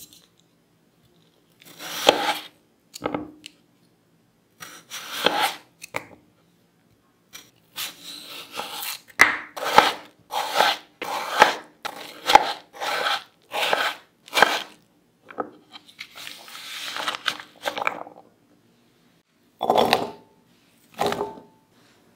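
Chef's knife cutting peeled raw potatoes on an end-grain wooden cutting board: crisp slices through the potato, each ending in a knock of the blade on the wood. The cuts come in a quick run of about one and a half a second through the middle, with a longer scraping stretch after it and two louder knocks near the end.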